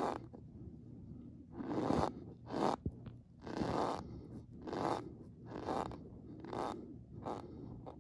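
Cornstarch squeaking and crunching under a heaped metal spoon, in a string of short bursts about one a second after a lull in the first two seconds.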